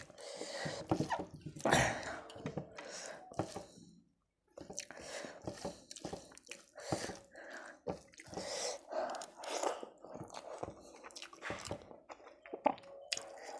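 Close-miked wet eating sounds: fingers squishing and mixing rice with curry on a plate, with mouth chewing, as a string of irregular wet clicks and squelches.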